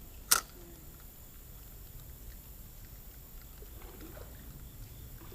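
A single sharp smack about a third of a second in, over a faint low background rumble.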